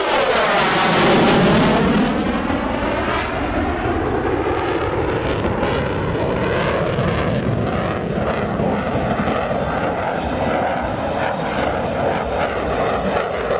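USAF F-16 fighter jet's engine flying a tight 9G turn. The sound is loudest with a sweeping, phasing tone as the jet passes in the first couple of seconds, then holds as a steady, even jet noise.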